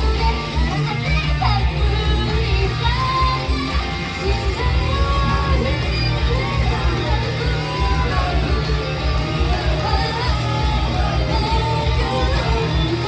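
Live rock band playing loud, with a heavy low end of bass and drums, electric guitar, and a vocalist singing and shouting.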